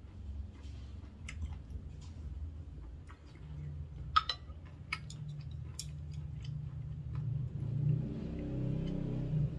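Close-up eating sounds of someone chewing and swallowing seafood noodle soup, with a run of sharp clicks and taps about four to six seconds in as a wooden spoon is set down on a ceramic plate and wooden chopsticks are handled.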